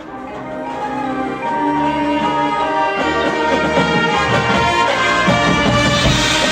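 Marching band playing live: sustained brass chords with the front ensemble, swelling in a crescendo over the first few seconds and then holding at full volume as the texture thickens.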